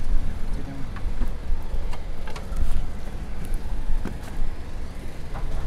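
Low, steady rumble of an idling boat engine, with a few light knocks and footsteps on a wooden boat deck.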